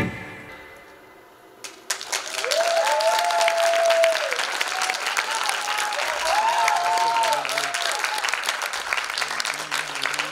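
The last notes of the music fade away, and about two seconds in an audience breaks into sustained applause, with a few voices calling out in cheers over the clapping.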